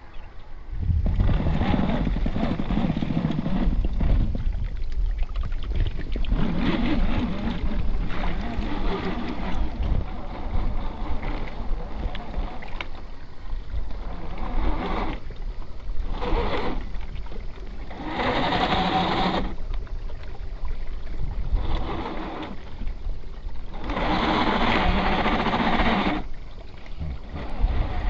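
Scale RC trail trucks driving through shallow icy water: electric motors and drivetrains whining in uneven spurts as the tyres churn and splash, over low wind rumble on the microphone.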